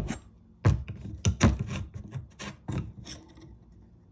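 Metal hand tools scraping and knocking against a cabinet's thin back panel as a small nail is worked out: about six short scrapes and knocks in the first three seconds, then quieter.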